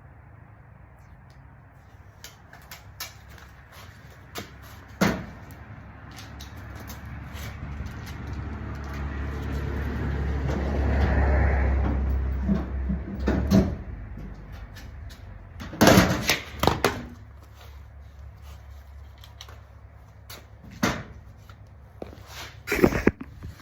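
A new car battery being handled and set into the battery tray: scattered clunks and knocks of the heavy battery against the metal, several loud ones in the second half. A low rumble swells and fades in the middle.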